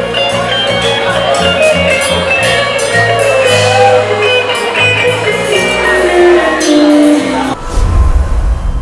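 Band music with guitar and a steady bass beat, a melody line running downward over the last few seconds; about seven and a half seconds in it breaks off into a low rumble.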